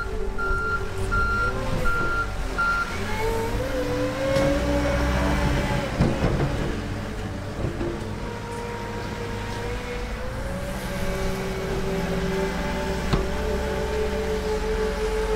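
Wheel loader's diesel engine running, with its reversing alarm beeping about twice a second for the first few seconds. The engine then rises in pitch as the machine works the snow, with a single sharp knock near the end.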